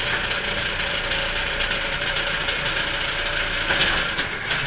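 Dark-ride car rumbling and rattling steadily along its track, with a few sharp knocks near the end.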